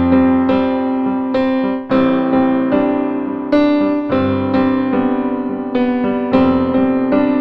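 Background piano music: a gentle melody of notes struck about every half second to second.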